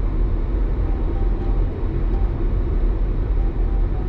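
Steady low engine and road rumble inside a moving Jeep's cabin.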